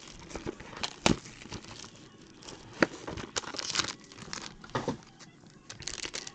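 Plastic wrap and packaging of a sealed trading-card box crinkling and tearing as it is opened, with scattered clicks and a few sharp knocks from the box being handled.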